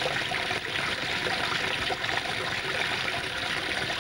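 Abstract electronic noise piece: a steady, dense hiss full of fine crackle.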